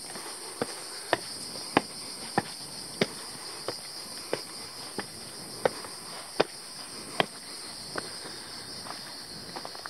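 Footsteps on a rocky stone path, a sharp step about every two-thirds of a second, over a steady high-pitched drone of cicadas.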